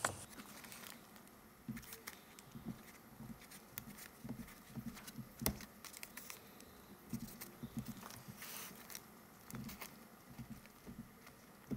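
Trim tool pressing and scraping around the retaining ring of a 1971 VW Beetle speedometer as the ring is folded back over the lens: faint scattered clicks, taps and scratches, with a sharper click about five and a half seconds in.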